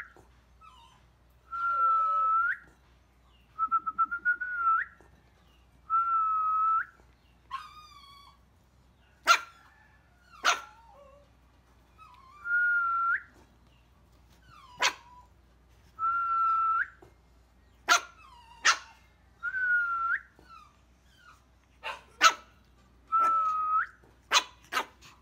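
A person whistling the same single note over and over, each note about a second long and flicking up at the end, calling puppies to get their attention. From about nine seconds in, short sharp sounds cut in between the notes, several in quick succession near the end.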